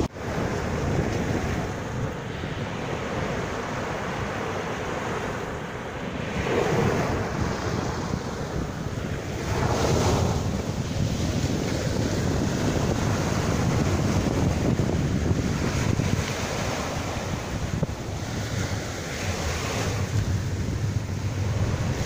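Small sea waves breaking and washing up over a sandy shore in a steady surf wash, with wind buffeting the microphone. Louder surges of breaking water come about six and ten seconds in.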